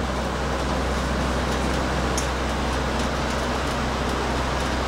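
Steady low mechanical drone with a hum in it, unchanging throughout, from machinery running on the other side of the dyno control-room window.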